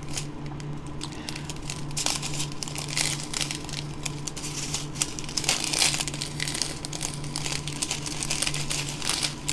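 Small clear plastic zip bags of diamond-painting rhinestone drills crinkling as they are handled, in irregular crackles throughout.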